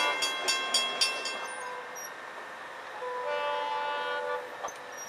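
Distant Florida East Coast freight locomotive horn sounding a chord: one blast fading out about two seconds in, then a second blast of just over a second about three seconds in. Quick sharp strikes, about four a second, ring along with the first blast.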